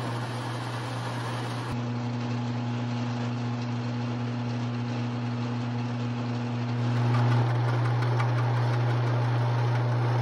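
Metal lathe running with a steady motor hum while facing and turning a cast bronze part. The sound changes abruptly about two seconds in and again about seven seconds in, and is louder after the second change.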